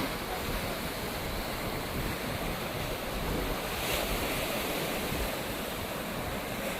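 Sea waves washing ashore, with wind rumbling on the microphone; the surf swells briefly about four seconds in.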